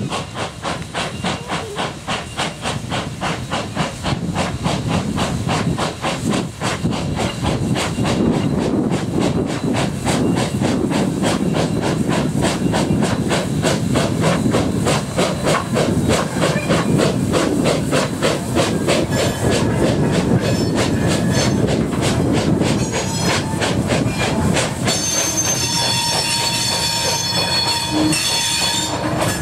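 Bagnall 0-6-0 saddle tank steam locomotive, built 1954, working a train of hopper wagons, its exhaust beating in a fast, even rhythm that grows louder from about eight seconds in. Near the end, train wheels squeal in thin high tones over the beat.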